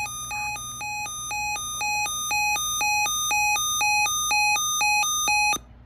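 Electronic two-tone alert alarm, most likely a weather alert radio's: a buzzy low beep and a higher beep alternate about twice a second, growing steadily louder, then cut off suddenly near the end, just before the next alert message is read.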